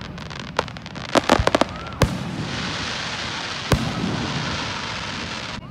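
Aerial fireworks shells bursting: a sharp bang, then a quick flurry of cracks about a second in, and a loud bang about two seconds in. A steady hiss follows, with another bang near four seconds, and the hiss cuts off abruptly near the end.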